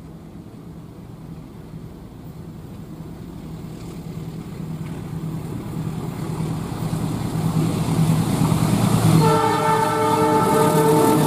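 Diesel locomotive hauling a passenger train, its engine drone growing steadily louder as it approaches. Near the end it sounds a loud horn blast of about two seconds.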